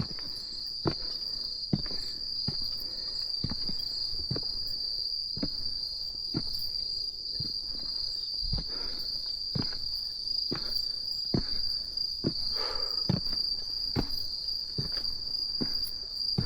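Steady, high-pitched chirring of night insects, crickets among them, with footsteps about once a second as someone walks along.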